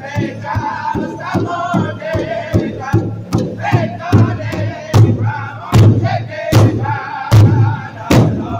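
Northern-style powwow drum group: several men beating a large rawhide-headed drum in a steady unison beat while singing a high-pitched song together. The drumbeat grows heavier about halfway through.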